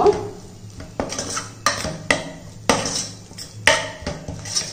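Metal spoon stirring a thick masala in a stainless steel pot, scraping and clanking against the pot's sides and bottom in about six irregular strokes.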